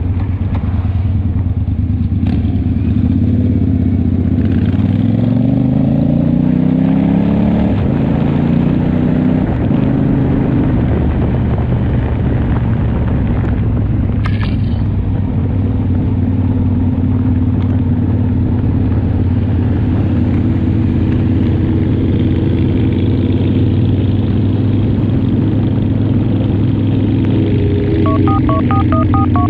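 Harley-Davidson chopper's V-twin engine running under way. Its pitch rises as it accelerates from about four to eight seconds in, then holds steady. Near the end a short run of beeping tones sounds over it.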